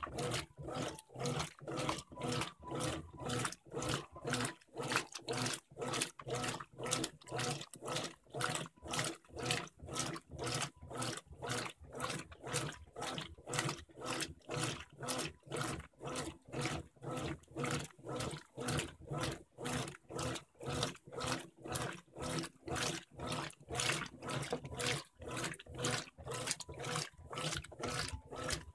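Brastemp BWG12 top-load washing machine agitating a load of jeans in soapy water during the wash stage: the agitator churns back and forth in even strokes, about two a second.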